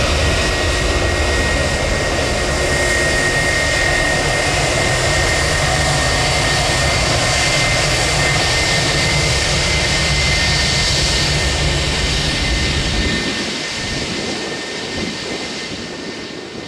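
Jet airliner's engines passing close: a loud, steady rumble with a high whine over it. The low rumble drops away about thirteen seconds in and the sound fades as the aircraft moves off.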